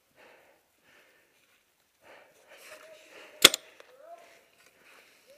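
A single sharp shot from a Tippmann TiPX paintball pistol about three and a half seconds in, among heavy breathing close to the microphone.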